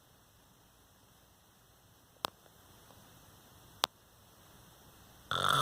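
Faint steady room hum with two sharp clicks, about two and four seconds in; near the end a man breaks into a loud snore, the loudest sound here.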